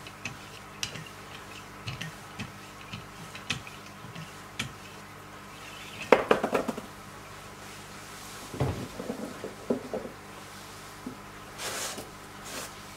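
Light clicks about once a second, then a clatter of knocks about six seconds in, more knocks a couple of seconds later, and short rustling bursts near the end: hard objects being handled and set down around a Wicked Edge knife-sharpening jig.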